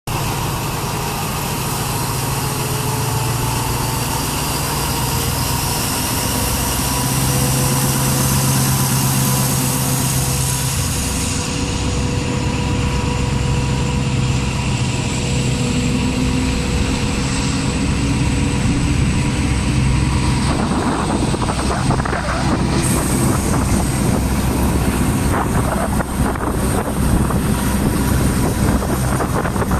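Diesel passenger train pulling away and gathering speed: the engine runs steadily while a whine rises in pitch over the first dozen seconds. From about twenty seconds in, wind and rushing wheel noise build up, heard through the carriage's open window.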